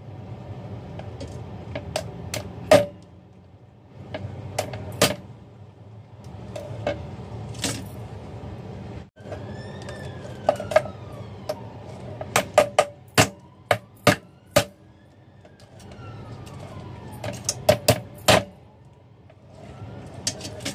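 Sharp knife strikes on a wooden cutting board as raw blue crabs are cut apart, in separate knocks that come in quick runs around the middle and again near the end. A siren wails faintly in the background for several seconds in the middle, its pitch rising and falling.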